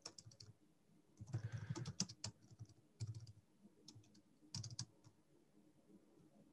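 Computer keyboard typing: short bursts of soft keystrokes with pauses between them, sparser in the last couple of seconds.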